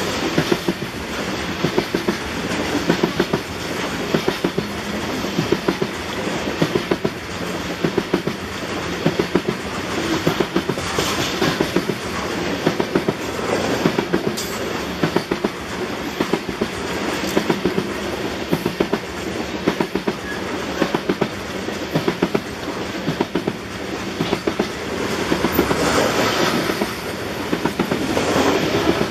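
Steel wheels of a coal train's bathtub gondola cars rolling past, a steady rumble with a running clickety-clack of wheels over the track.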